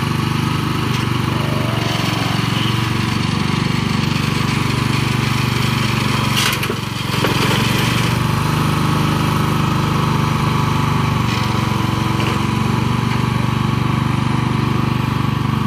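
Bolens G14 lawn tractor's 14 hp Tecumseh engine running steadily, with a short knock and a brief dip in the engine sound about halfway through.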